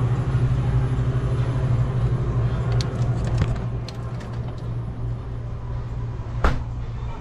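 Steady low hum of refrigerated drink coolers, with light clicks of plastic water bottles being handled at the open cooler door. A single sharp knock comes near the end.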